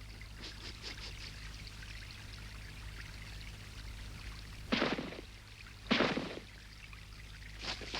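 Liquid pouring and trickling, with two short louder bursts about five and six seconds in.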